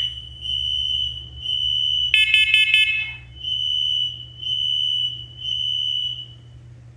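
Interconnected household smoke alarms sounding: high-pitched beeps in the three-beeps-then-pause fire alarm pattern. About two seconds in, a brief harsher pulsing tone from another alarm cuts in.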